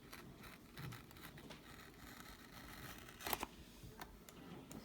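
Faint handling sounds as a trading-card box is opened, with a short tearing sound about three seconds in.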